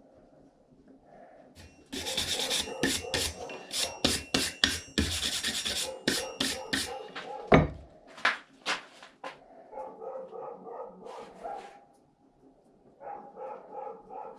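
Rapid scraping strokes of metalwork, like a file rasping over a steel blade, for about five seconds, followed by a few sharp knocks and then a faint, wavering whine.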